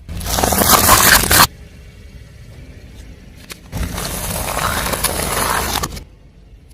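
Car tyre rolling over crunchy objects and crushing them, a dense crackling and scraping heard in two separate bursts: one about a second and a half long at the start, a longer one beginning a little past the middle. Each ends abruptly.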